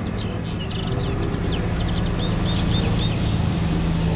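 Heavy truck's diesel engine running steadily as it drives slowly past, a low hum that grows a little stronger partway through, with birds chirping in a series of short calls.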